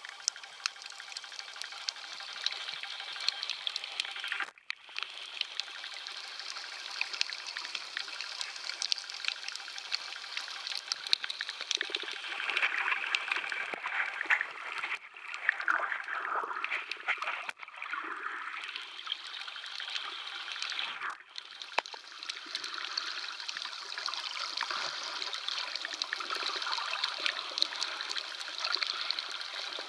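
Seawater washing and gurgling around an underwater camera moving through shallow water over a coral reef: a steady hiss flecked with fine crackling. It cuts out briefly a few times.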